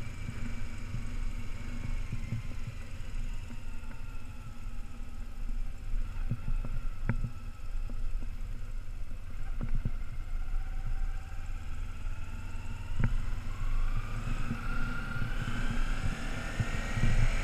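2008 Kawasaki Ninja 250R's parallel-twin engine running at low road speed, with wind rumbling on the helmet microphone. From about thirteen seconds in, the engine pitch rises as the bike accelerates.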